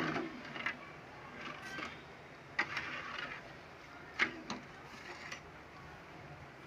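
Metal ladle scraping and knocking against a metal kadhai as semolina halwa is stirred, in irregular strokes, with the sharpest knocks right at the start and about four seconds in.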